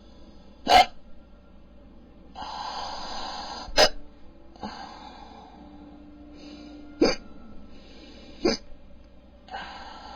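A man hiccuping four times, each hiccup short and sharp and coming at irregular gaps, with two long, noisy breaths in between. It is a stubborn bout of hiccups that has gone on for hours and will not stop.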